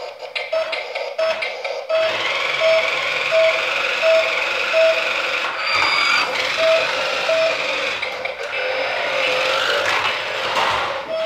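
Toy remote-controlled police jeep: an electronic beep repeating about one and a half times a second, joined about two seconds in by a steady whir from its motor and gears as it drives.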